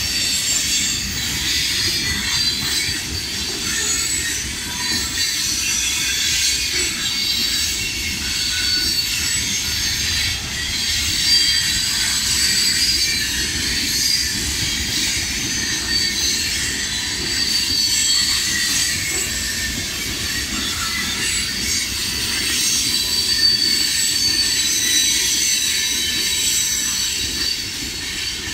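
Freight train of CSX gondola cars rolling past at steady speed: a continuous rumble of steel wheels on rail, with high-pitched wheel squeal coming and going over it.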